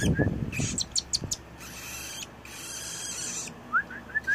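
Eight-day-old cockatiel chick begging while being spoon-fed: raspy, hissing begging calls with a few thin high squeaks about a second in. Near the end there is a quick run of short rising chirps. A brief low sound comes at the very start.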